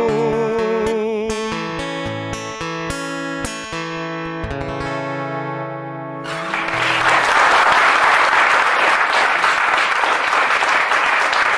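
A man's voice holds a final sung note with vibrato over strummed acoustic guitar. The guitar's closing chords then ring out and die away. About six seconds in, the audience breaks into applause that lasts to the end.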